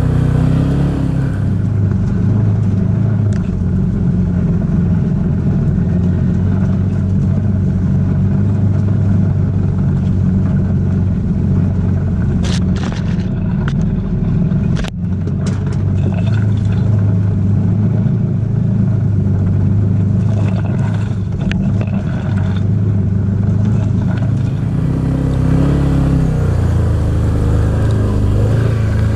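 Side-by-side UTV engine running steadily while driving up a back road, with a few sharp clicks and scrapes around the middle and the engine pitch shifting near the end.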